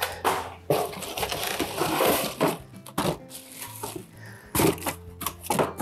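Packaging rustling and crinkling as a cookware piece is unwrapped, followed by a few sharp knocks and clicks near the end.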